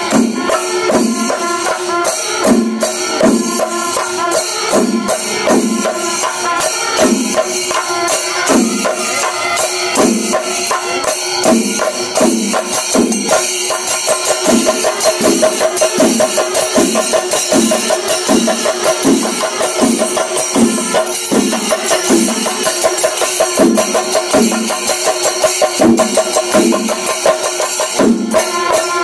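Music with steady percussion: drums beating a regular rhythm under jingling, tambourine-like hand percussion, with a sustained melody line above.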